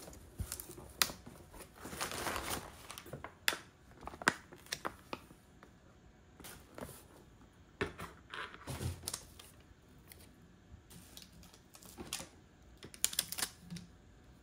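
A cardboard box being unpacked by hand: packing material and plastic refill pouches rustle and crinkle, with scattered taps and knocks as items are lifted out and set down.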